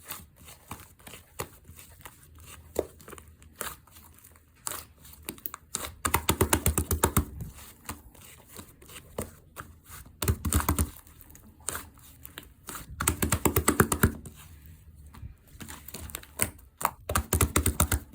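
Slime being worked by hand: scattered sticky clicks and pops, with four stretches of rapid crackling and popping as it is pressed and squished, about 6, 10, 13 and 17 seconds in.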